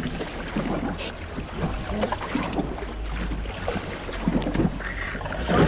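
Wind buffeting the microphone and choppy sea water slapping against the hull of an inflatable boat, over a steady low rumble, with scattered small knocks.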